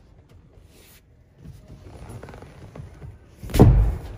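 Rustling handling noise on a boat's deck and upholstery, then one dull, heavy thump about three and a half seconds in.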